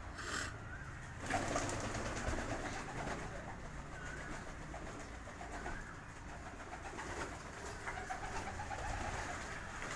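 Homing pigeons bathing in a shallow basin of water, splashing and flapping their wings, with pigeons cooing now and then.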